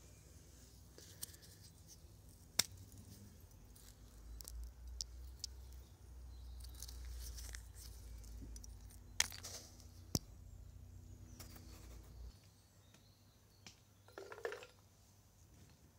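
Small pieces of fired limestone handled inside a clay kiln: faint scraping and rustling, with a few sharp clicks of stone on stone and a short knock near the end.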